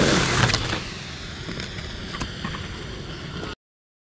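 Skateboard wheels rolling on a concrete bowl, louder for the first second, then a steady rumble with a few sharp clicks, cutting off abruptly about three and a half seconds in.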